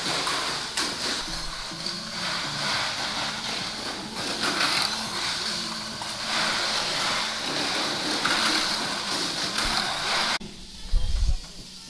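Tamiya Mini 4WD cars running on a plastic Japan Cup Junior Circuit track: a steady high-pitched hiss from their small motors and gears. It drops off abruptly near the end, followed by a short low thump.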